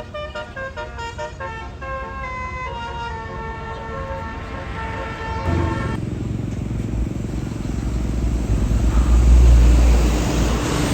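Tour bus's 'basuri' telolet horn playing a melody of quick stepping tones, cutting off about six seconds in. The bus engine then rumbles, swelling to its loudest about nine seconds in.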